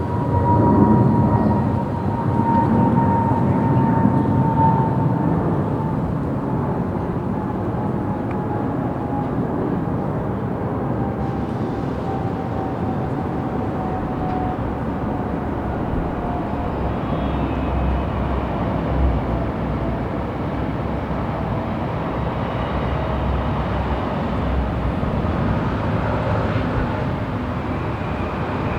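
Busy city street traffic ambience: a steady wash of vehicle noise, with a vehicle passing close and loudest in the first few seconds. A thin whining tone slowly falls in pitch over most of the first twenty seconds.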